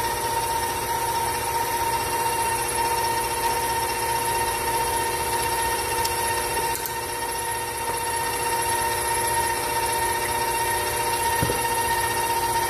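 Electric kitchen mixer motor running steadily with a constant whine, creaming butter and sugar.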